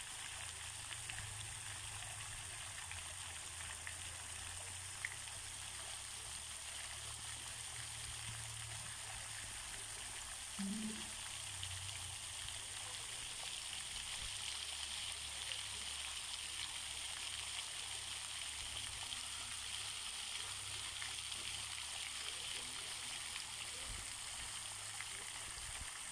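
Swimming-pool fountain jets spraying water that splashes steadily onto the pool surface, an even hiss of falling water. One short low sound breaks in about ten seconds in.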